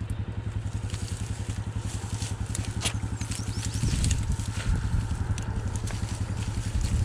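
Rhino side-by-side utility vehicle's engine idling with a steady, even throb, getting a little louder from about four seconds in. A couple of light clicks come about three seconds in.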